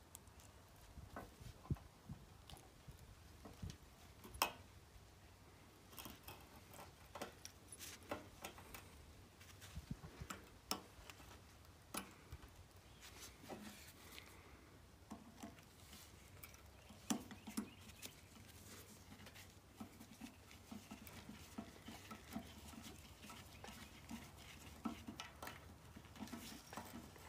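Faint, scattered clicks and taps of hands working on a plastic electrical plug and its wires, with a screwdriver turning in the plug's terminal screws near the end.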